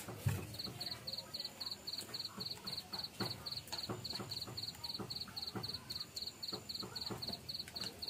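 A cricket chirping steadily, about four even pulses a second, with scattered clicks and knocks from stirring greens in a pot over a wood fire.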